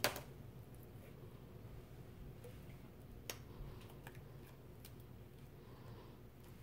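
Faint handling sounds from hands tying a slime-filled rubber balloon: a sharp snap right at the start and another about three seconds in, with a few light ticks, over a low steady hum.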